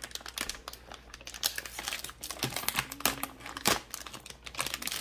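Plastic toy packet crinkling as it is pulled and torn open by hand: a dense run of irregular crackles, the loudest about three and a half seconds in.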